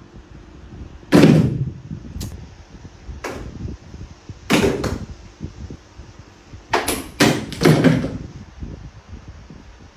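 A series of sudden loud thumps and knocks, about half a dozen in all. Two come in quick succession near the middle and three close together later on.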